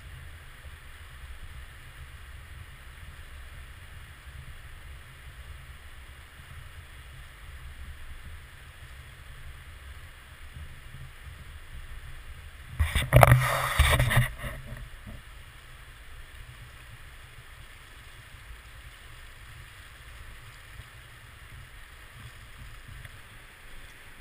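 Shallow river water running over stones, a steady low rush with a rumble underneath. About halfway through, a loud burst of noise lasting about a second and a half.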